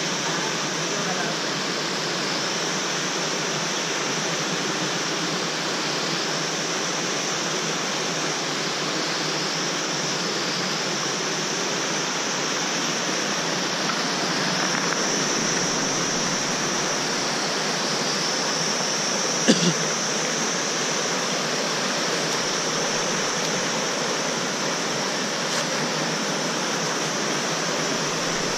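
Whitewater of a fast mountain stream cascading over boulders, a steady rushing noise. A single sharp knock sounds about two-thirds of the way through.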